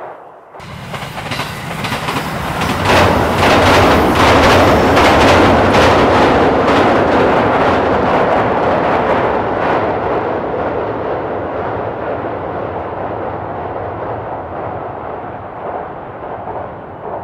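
Train passing, its wheels clattering over the rails, recorded on a ZOOM H2n in XY stereo. The sound cuts in suddenly near the start, is loudest a few seconds in, then eases into a steadier rumble over the second half.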